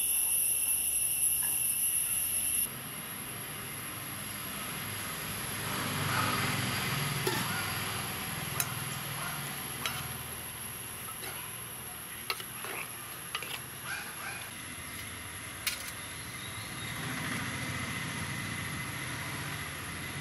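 Outdoor wood-fire cooking sounds: a clay pot of tamarind water with shallots and dried chillies boiling under a low, even rumble, a few sharp clinks scattered through it, and a steady high whine in the background.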